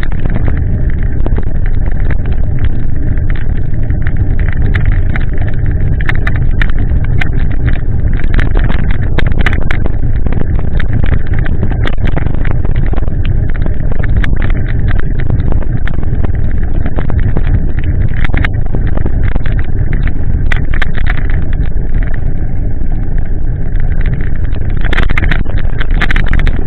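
Loud, steady wind and rain noise on the microphone of a bicycle-mounted camera while riding through heavy rain, heaviest in the low rumble, with tyres on the wet path. Scattered sharp ticks run through it.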